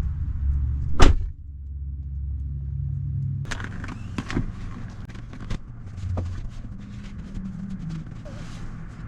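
A low, steady vehicle-like rumble with one loud, sharp knock about a second in. From about three and a half seconds it gives way to rustling and scattered clicks and knocks.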